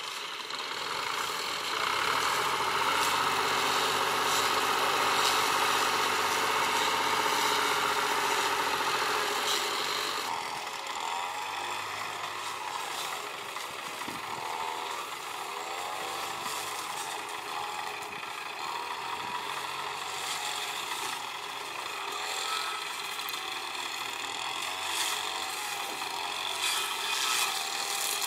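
Farm tractor engine running, louder for the first several seconds, then settling to a lower, steady run about ten seconds in.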